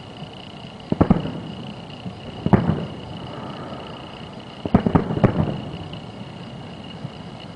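Aerial fireworks shells bursting about three miles away: two booms close together about a second in, another at about two and a half seconds, then a quick cluster of three near five seconds, each trailing off in a rumble.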